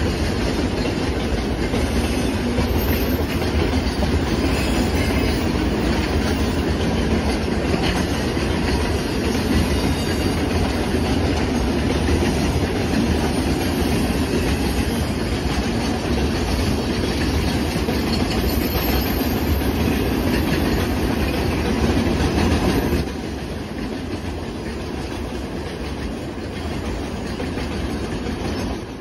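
Lake Superior & Ishpeming Railroad ore hopper cars rolling past: a steady rumble of steel wheels on rail with clickety-clack over the rail joints. The sound drops suddenly to a quieter level about 23 seconds in.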